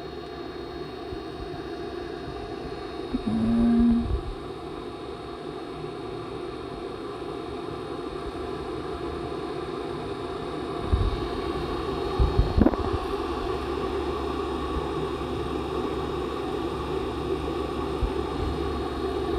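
Sculpto desktop 3D printer running: steady whir of its stepper motors and fan with several held tones, and a brief louder motor tone about three seconds in. A few short knocks come around eleven to thirteen seconds in.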